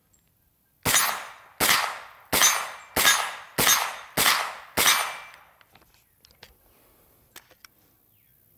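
Seven 9mm shots from a Wilson Combat AR9-G carbine, fired at a steady pace about two every 1.5 s, each report trailing off in a short echo. The string stops at a failure to fire, a hard primer in Wolf steel-cased ammunition, and a few faint handling clicks follow.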